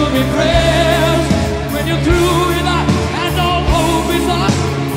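Background music: a song with a singing voice carrying a wavering melody over a steady bass line.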